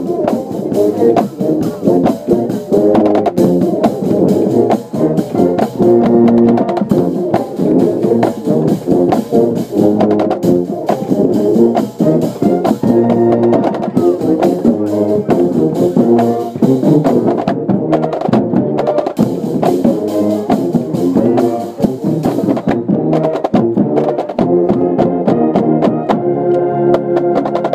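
Marching band playing a tune, brass instruments holding and changing notes over drums and percussion.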